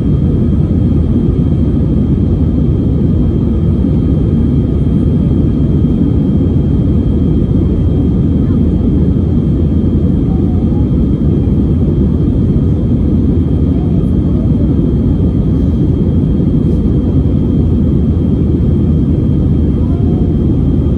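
Steady cabin noise of an Airbus A320-family airliner in flight: a dense low rumble of engines and airflow with a thin, steady high whine over it.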